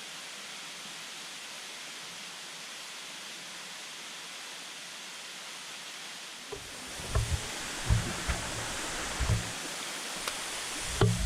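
Steady rushing of a waterfall's falling water. About two-thirds of the way in, a low rumble and a series of short low thumps join it.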